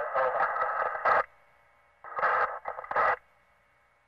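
Police two-way radio chatter: two short transmissions of narrow, tinny voice through a radio, the first ending about a second in and the second running from about two to three seconds in, each closing with a brief burst of hiss.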